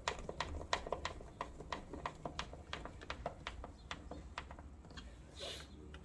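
A screwdriver turned by hand, driving a screw through a plastic mounting bracket into wood siding: a steady run of small clicks about four a second. A brief rustle comes near the end.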